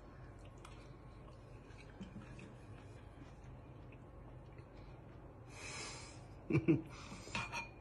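Mostly quiet room tone with faint small clicks while a man eats from a spoon. About six seconds in comes a short breathy hiss, then a brief man's vocal sound near the end.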